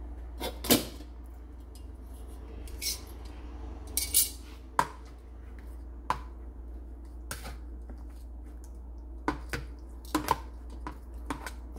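Metal kitchen tongs clacking against a mixing bowl and each other while turning marinated chicken drumsticks: a dozen or so irregular sharp clicks and knocks over a steady low hum.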